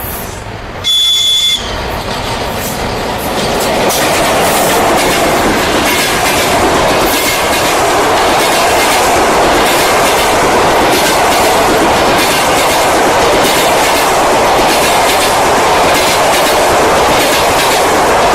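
A ChS2K electric locomotive gives a short, high-pitched horn blast about a second in. Then the locomotive and its express passenger coaches pass close by, loud and steady, with wheels clicking rhythmically over the rail joints.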